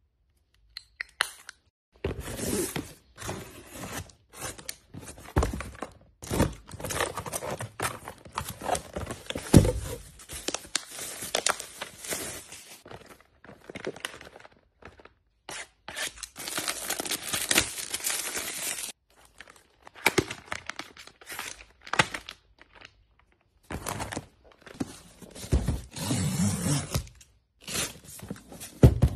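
Close-up handling of cosmetics packaging: a few light clicks, then, from about two seconds in, irregular bursts of crinkling, rustling, tearing and scraping from plastic-wrapped face-mask packs and a taped cardboard box, with short pauses between them.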